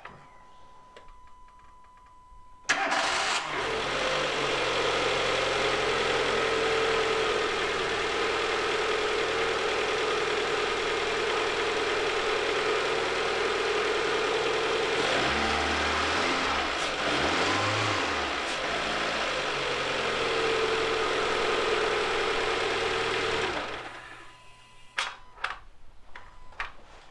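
Renault D4F four-cylinder petrol engine turned over with the ignition key on its first start after a new timing belt, tensioner and water pump: it catches almost at once about three seconds in. It then idles steadily for about twenty seconds, with a brief change in note midway, before being switched off.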